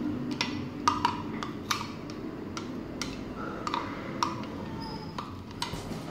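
Metal spoon clicking and scraping against a clear plastic chopper bowl while stirring chopped garlic: irregular sharp clicks, about ten in all.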